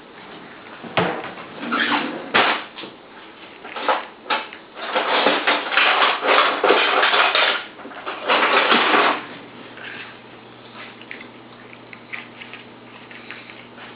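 Kitchen dishes and utensils clattering: a few knocks, then a few seconds of busy scraping and rattling, typical of mixing muffin batter in a bowl and handling a muffin tin, before it goes quieter.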